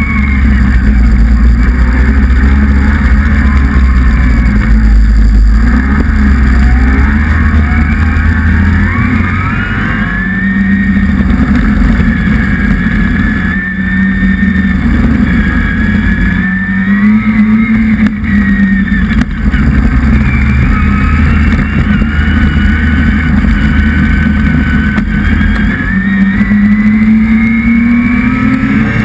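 Motor vehicle engine running hard and close. Its pitch climbs as it revs up, then falls back, several times over.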